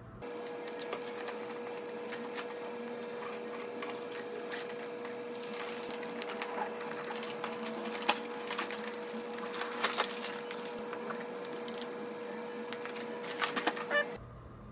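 Gift-wrapping paper rustling and crinkling as it is folded around a cardboard toy box, with sharp crackles now and then. A steady faint hum runs underneath.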